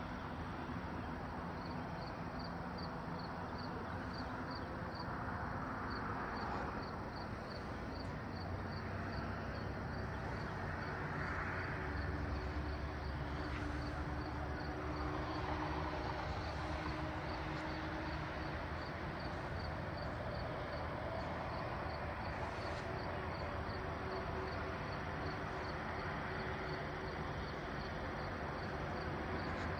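Crickets chirping steadily at about three chirps a second, over a low, steady rumble.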